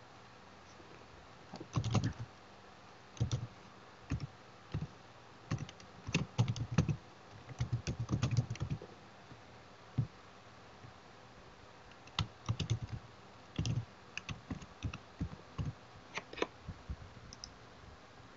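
Typing on a computer keyboard: irregular bursts of quick keystrokes with short pauses between them, as an email address and then a password are entered.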